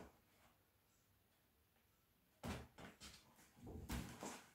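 Stiff paper shopping bags rustling and being set down on a table in a few short bursts, starting about two and a half seconds in after near silence.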